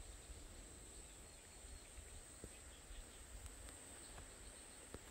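Faint natural ambience: a steady high-pitched insect drone, with a low rumble underneath and a few faint clicks.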